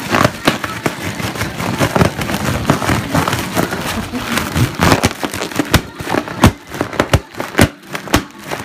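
Fireworks sound effects playing: irregular bangs and crackles, with a denser run of sharp cracks in the second half. It is a noise-desensitisation track played to get a puppy used to loud bangs.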